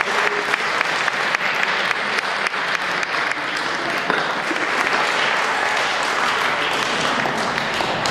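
Audience applauding a successful bench press lift: dense, rapid claps at first that blend into a steady wash of applause.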